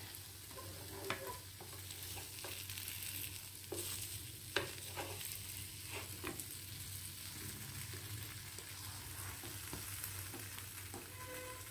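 Butter sizzling steadily in a non-stick pan as a besan-coated bread sandwich fries. A wooden spatula clicks and scrapes against the pan several times in the first half as the sandwich is cut and folded over.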